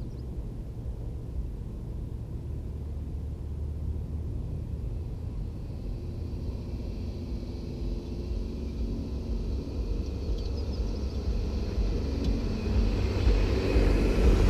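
Jeep driving: a steady low engine and road rumble that grows louder in the last few seconds.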